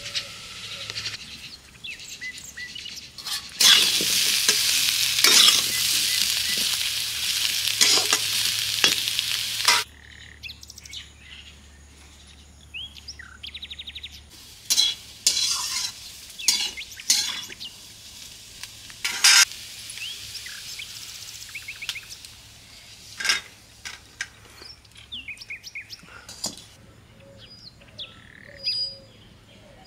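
Chopped vegetables sizzling loudly in hot oil in a kadhai, stirred with a metal spatula. After about ten seconds the sizzle stops abruptly, leaving scattered clinks and knocks of utensils and birds chirping.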